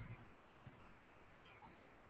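Near silence: faint room tone, with one small click about two-thirds of a second in.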